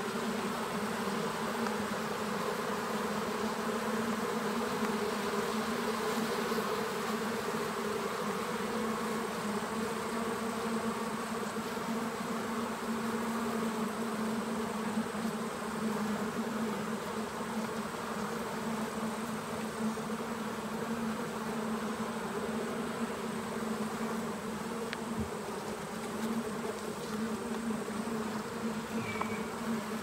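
Many honey bees humming around an opened hive: a steady, even drone.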